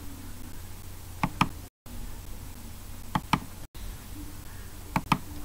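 Computer mouse button clicked three times, each a sharp press-and-release pair about a fifth of a second apart, over a faint low hum that cuts out briefly twice.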